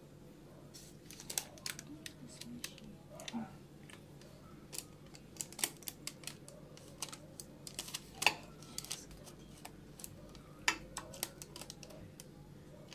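Metal fork tapping and clicking irregularly against a parchment-lined metal baking tray as raw cookie dough is pressed flat with the tines, with the sharpest clack about eight seconds in.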